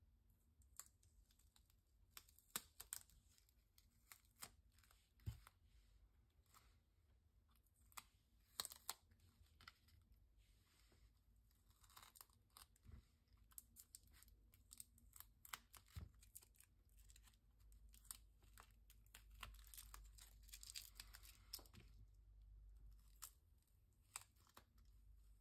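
Faint peeling, tearing and crinkling as glued-on plastic stencil pieces are pulled off an acrylic-painted paper page, with scattered small clicks and crackles and a denser stretch of rustling about two-thirds of the way through.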